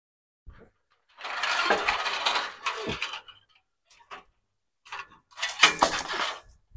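Chain-link fencing rattling and jingling against a steel frame as it is pulled up and over, in two long bursts, about a second in and again near the end, with a few clinks between.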